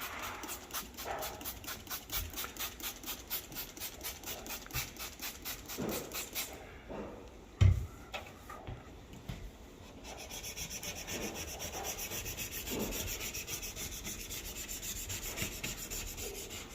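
Rapid back-and-forth scrubbing on a glass stovetop wet with glass cleaner, about four strokes a second. There is a single knock about eight seconds in, then steadier rubbing.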